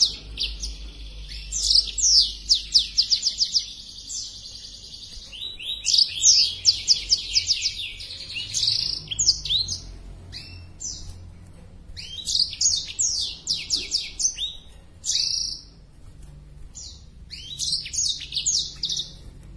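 Black-throated canary (blackthroat) singing persistently: repeated phrases of rapid high, falling trill notes, each lasting a second or two with short pauses between. This is the vigorous song of a bird in breeding condition.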